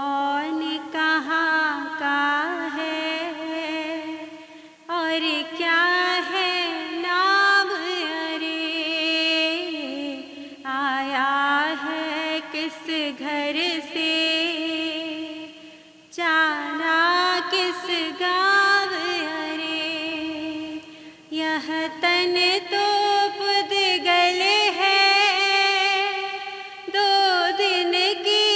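A woman's solo voice singing a Hindi devotional bhajan into a microphone, with long held, ornamented notes. Her phrases are broken by brief pauses about every five seconds.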